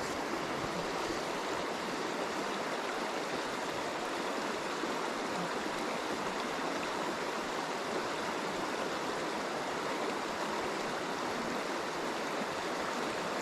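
River water running steadily over rocks, an even, unbroken rush.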